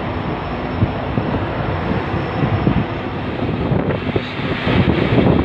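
Storm wind buffeting the microphone, with rain, at sea on a small fishing boat: a steady noisy rumble that grows louder near the end.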